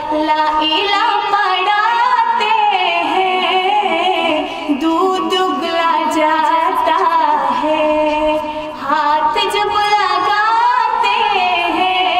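Naat, an Urdu devotional song, sung by a voice in a long, wavering, ornamented melody.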